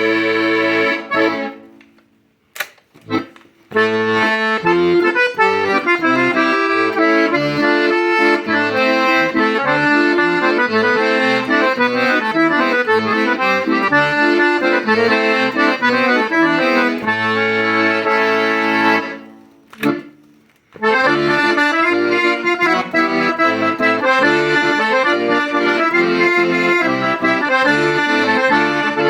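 Hohner Lucia IV P piano accordion playing a melody over a steady bass-and-chord accompaniment. The playing stops briefly twice, about two seconds in and again about two-thirds of the way through, with a single click in each pause.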